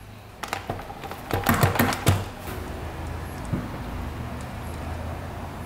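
Hand tools and metal engine parts clicking and knocking against each other, a cluster of sharp clicks in the first two seconds, over a steady low hum.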